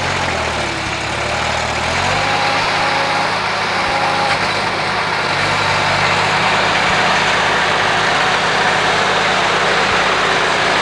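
Heavy vehicle engine running close by, its pitch shifting about two seconds in and then holding steady.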